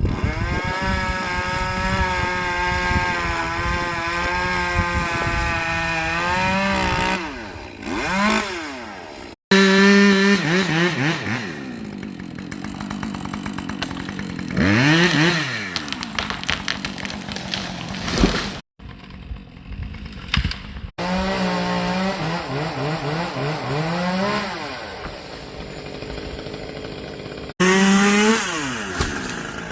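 Gas chainsaw running at high revs, its engine pitch wavering, dropping and climbing again as it bogs under load and revs back up, typical of cutting through wood. The sound breaks off and jumps abruptly several times.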